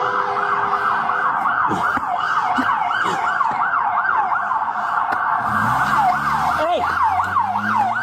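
Police car siren on the fast yelp setting, its pitch sweeping up and down about three to four times a second and slowing a little near the end.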